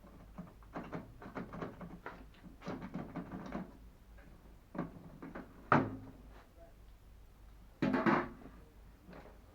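Clatter and clicks of metal and plastic parts being handled while taking apart a microwave oven, with a sharp knock about six seconds in and a louder, brief rattling scrape about eight seconds in.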